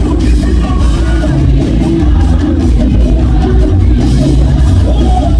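Loud music with heavy bass and drums and a singing voice.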